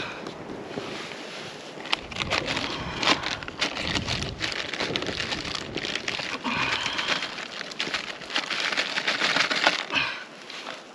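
Small wood fire crackling and hissing in a Bushbox twig stove under a frying pan, with many sharp crackles throughout.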